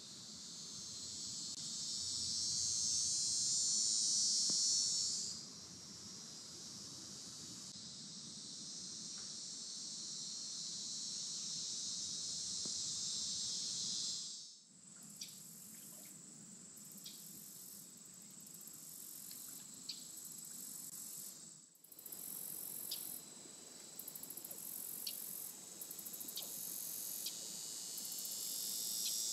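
Woodland insect chorus: a steady high-pitched buzzing that swells loudest for a few seconds near the start, then settles. It breaks off briefly twice, and after the first break it goes on as a steady high trill with pulsing higher chirps.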